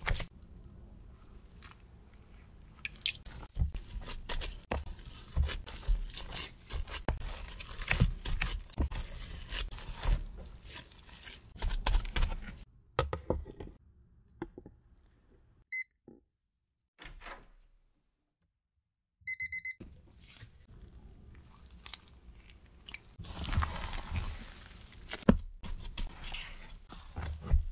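Gloved hands stretching and folding wet, sticky whole wheat ciabatta dough in a plastic tub, making irregular wet slaps and squishes. Midway the handling stops and a digital kitchen timer beeps once, then gives a quick run of beeps as it is set, before the dough handling resumes.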